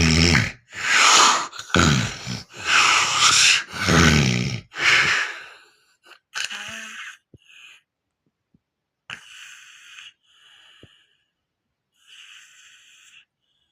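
A person snoring heavily: loud rasping snores, breathing in and out about once a second for the first five seconds, then a few quieter breathy breaths with pauses between them.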